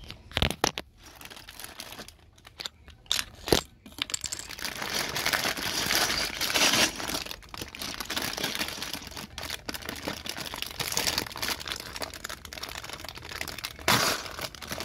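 Rustling and crinkling handling noise, with a few sharp clicks in the first four seconds and a louder stretch of rustling after that.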